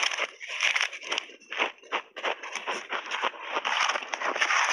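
Frozen ice chunks coated in milk powder being bitten and crunched in the mouth close to the microphone: a dense, continuous run of crisp cracks and crackles, a little louder near the end.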